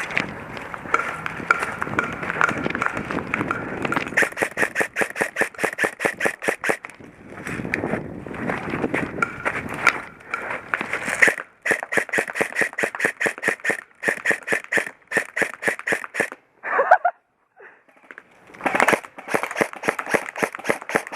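Airsoft guns firing long strings of rapid shots, about five a second. The firing stops briefly near the end, then starts again.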